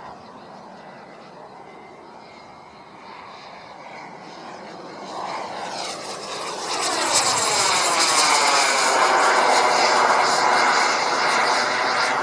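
RC model jet flying, faint at first, then growing much louder about five seconds in as it comes past. Its engine gives a strong, high, rushing sound that stays loud to the end.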